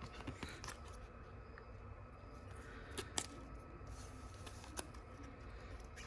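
Trading cards being handled: faint sliding and rustling of card stock, with a few light clicks, the sharpest about three seconds in and again near five seconds.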